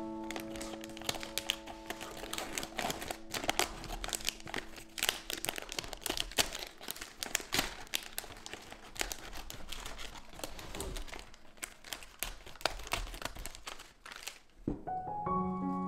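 Clear plastic film crinkling and crackling as it is handled and cut with scissors to trim the box liner, with many sharp irregular clicks. Soft background music holds a few notes at the start and piano comes back in near the end.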